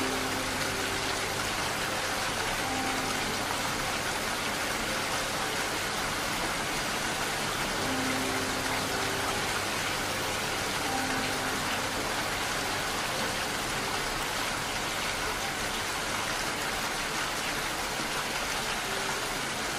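Steady rain falling, an even, unbroken patter, with faint slow music notes sounding every couple of seconds over it.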